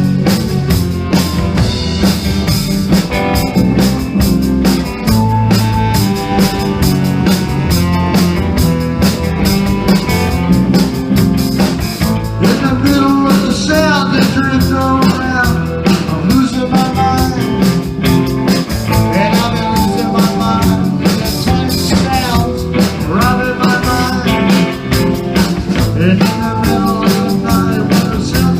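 Rock band playing a song, with a drum kit keeping a steady beat under bass and melodic lines that bend in pitch now and then.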